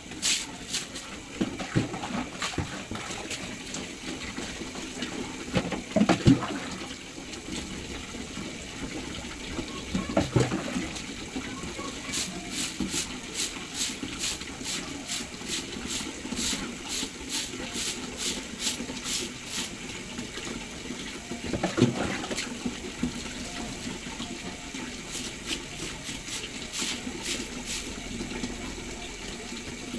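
Water splashing onto a concrete floor as it is poured from a plastic dipper, with a few louder splashes and runs of quick sharp ticks.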